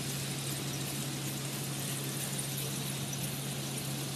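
Freight train of tank wagons hauled by an EF65 DC electric locomotive running past at a distance: a steady rumble with a constant low hum.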